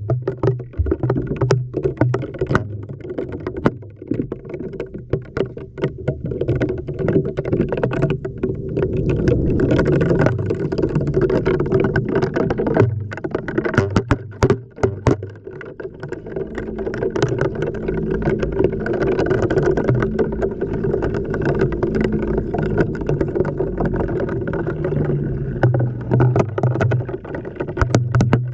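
Inside an LG washing machine drum during a wash cycle: water sloshing as the drum turns, swelling and easing twice, with frequent sharp knocks of the tumbling load against the GoPro's housing and a pulsing low motor hum.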